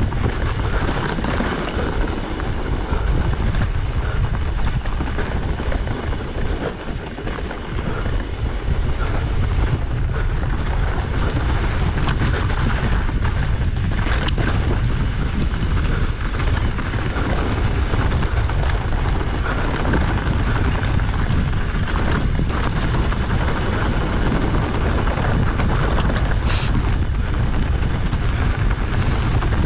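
Wind buffeting a mountain bike camera's microphone while riding, over a steady rumble of knobby tyres rolling on a dirt and gravel trail, with a few brief knocks from the bike over bumps.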